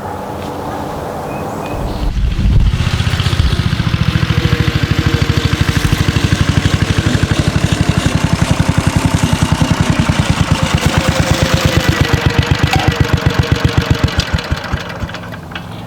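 Cushman Trailster scooter's 8 hp single-cylinder flathead engine running. About two seconds in it gets louder and settles into an even, low thumping of roughly ten firing beats a second, then drops away near the end.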